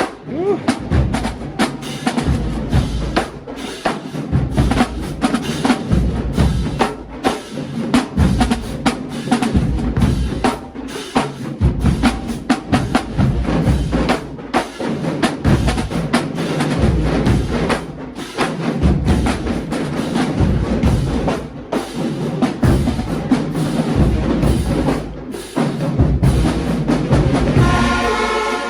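Loud drum-driven music: bass drums and snares hitting hard and often, with heavy low bass throughout.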